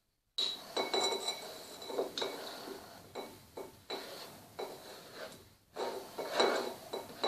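Thin raw potato slices being put by hand into a deep plate: a run of irregular light knocks and clinks on the dish, with a faint ring from the plate.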